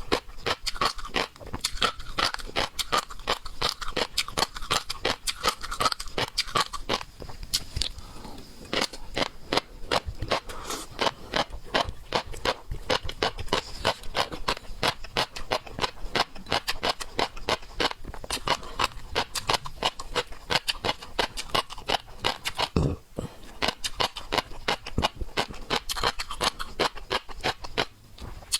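Close-miked eating of seafood: steady wet chewing and crunching, a quick run of small clicks and crackles that barely lets up, with a brief break a little before the end.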